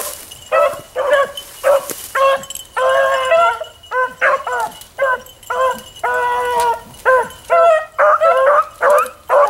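Beagles baying steadily as they work a scent line: a constant run of short bawls, with two longer drawn-out bays partway through.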